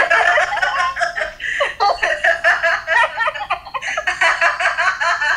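A young woman laughing hard and continuously, in quick repeated bursts, heard over a video call.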